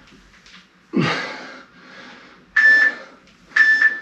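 Interval workout timer beeping a countdown: two short beeps at the same pitch, about a second apart, in the second half, marking the end of an interval. A heavy breath about a second in.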